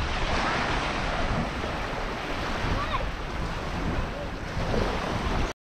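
Small waves washing up on a sandy beach, with wind buffeting the microphone; the sound cuts off suddenly near the end.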